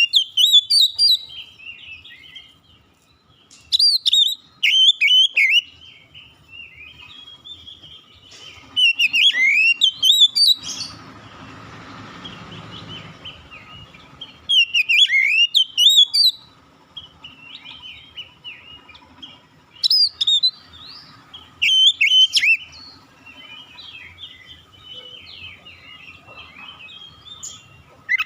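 Oriental magpie-robin (kacer) singing: loud bursts of rapid, sweeping whistled phrases every few seconds, with softer warbling between them. A stretch of hiss comes and goes a little before the middle.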